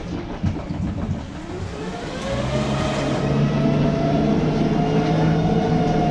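Glass-bottom tour boat's motor speeding up: a whine rises in pitch over a second or two, then holds steady over a low hum.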